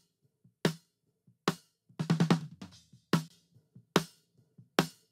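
Close-miked snare drum track played back on its own, dry and gated so each hit cuts off cleanly, with its top end lifted and a little low end added by EQ. Single hits about every 0.8 s, with a quick run of several hits about two seconds in.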